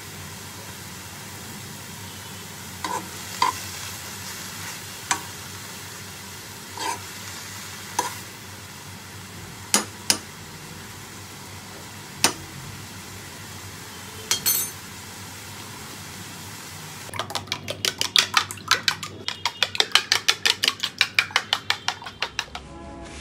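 Mushrooms frying in butter in a non-stick kadai, sizzling softly, with scattered knocks of a spatula stirring against the pan. About three-quarters of the way in, rapid clinks of a utensil whisking eggs in a bowl take over, about four strokes a second.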